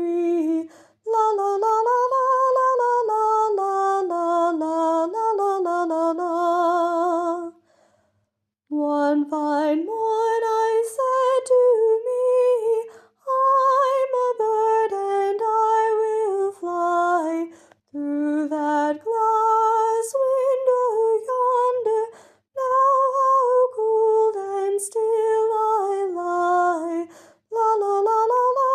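A woman singing unaccompanied in a slow, lullaby-like melody, holding notes with a marked vibrato. She sings in phrases with short breaths between them.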